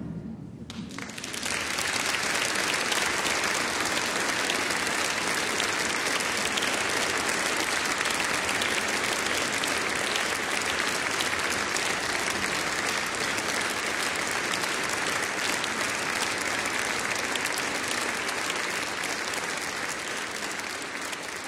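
Concert audience applauding, breaking out about a second in, holding steady, then easing off near the end.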